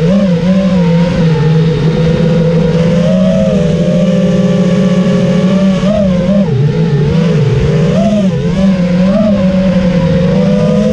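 FPV racing quadcopter's four T-Motor F60 Pro V2 2700kv brushless motors and propellers whining, the pitch rising and falling with each throttle change as it flies.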